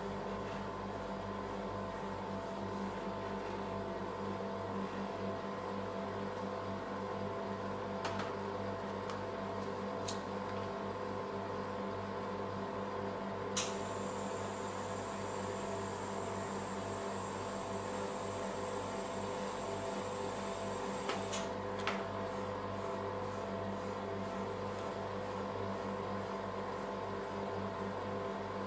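Steady machine hum with several fixed pitches from the rolled-ice-cream machine's refrigerated cold plate running, with a few sharp clicks of a knife tapping a plastic cutting board as an avocado is cut. A faint high whine joins for several seconds in the middle.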